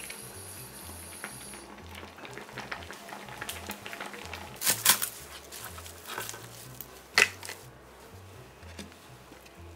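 Sundubu-jjigae boiling in a black earthenware ttukbaegi over a gas burner, crackling and popping steadily, with a few louder pops about five and seven seconds in.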